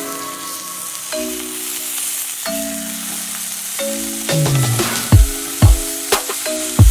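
Sliced smoked sausages sizzling in oil in a hot nonstick frying pan as they are turned with tongs. Background music with held notes plays over it, and a heavy drum beat comes in about five seconds in.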